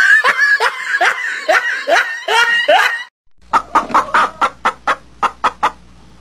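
Laughter in quick repeated 'ha' syllables that fall in pitch, lasting about three seconds. After a short gap, chickens cluck in a fast, even run of short clucks, about five a second.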